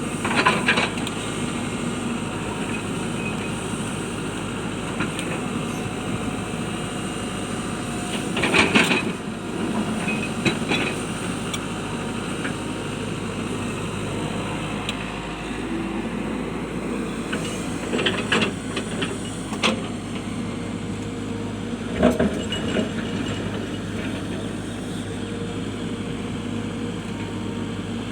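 Hitachi excavator's diesel engine running steadily while it works rocks, with several sudden loud clanks and knocks of rock against steel, the loudest about a third of the way through.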